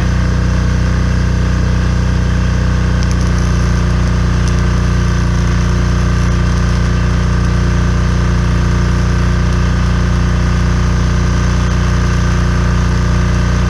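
Steady, unchanging drone of a running engine or motor with a low hum, with a few faint ticks about three to four seconds in.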